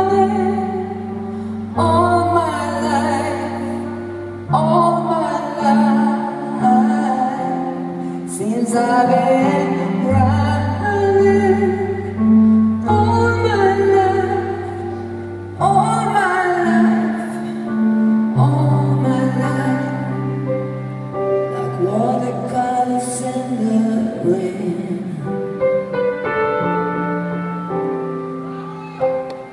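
A woman singing a slow ballad live into a microphone, with held keyboard notes underneath, heard through a concert hall's sound system.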